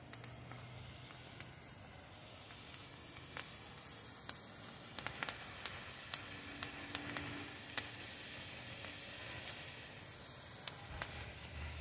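Crowning Glory handheld firework fountain burning with a steady hiss, scattered with sharp crackles of spitting sparks that come thickest in the middle of the burn.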